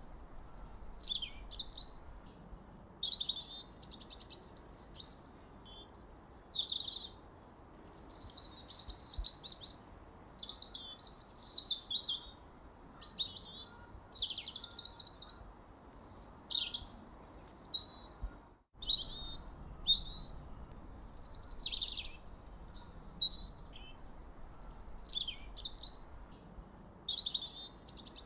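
Birds chirping and singing in a dense chorus of quick, high chirps and falling whistled calls over a faint steady background hiss. The sound briefly cuts out about two-thirds of the way through.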